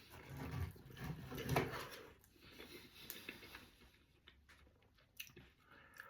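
Someone chewing a mouthful of chicken pie close to the microphone, with small wet mouth clicks; louder in the first two seconds, then fainter.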